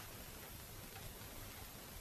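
Faint room tone: a steady hiss with a low hum underneath and no distinct sound event.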